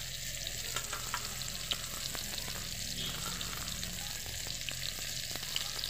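Bitter gourd slices sizzling as they fry in hot oil in a steel kadai: a steady hiss with scattered small pops.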